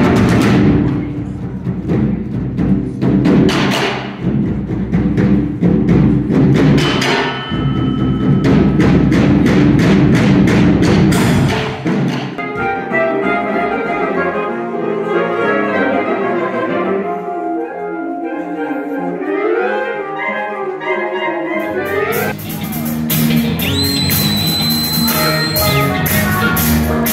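Live music in three short sections: an ensemble pounds metal drums built from scrap, with sharp ringing strikes; about twelve seconds in, a saxophone quintet takes over with close-voiced lines and a rising run; near the end, a band with drum kit and electric guitar starts playing.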